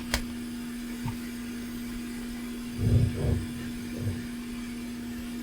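Electric desoldering gun's vacuum pump triggered on the HDMI socket's through-hole joints: a sharp click just after the start, then short low pump bursts about three and four seconds in, over a steady bench hum. The gun is sucking poorly, which the repairer puts down to a clogged gun.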